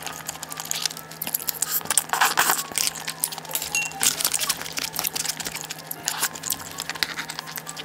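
Irregular handling noises: packaging rustling and crinkling, with scattered clicks and light clinks of tableware.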